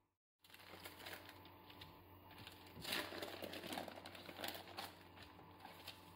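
Baking parchment crinkling and crackling as it is peeled off the back of a baked cocoa sponge sheet, loudest about three seconds in.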